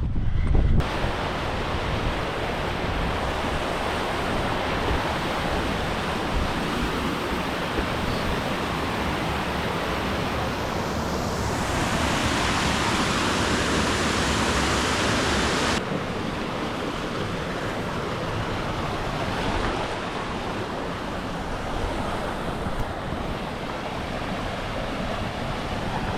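Steady rush of a fast-running moorland stream, with wind rumbling on the microphone. Partway through, the rush grows louder and brighter for a few seconds, then drops back suddenly.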